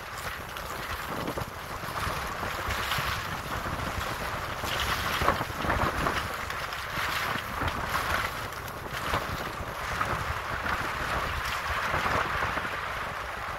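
Wind rushing over the microphone during a downhill ski run, with skis hissing and scraping over packed, groomed snow; the scraping surges every second or two with the turns.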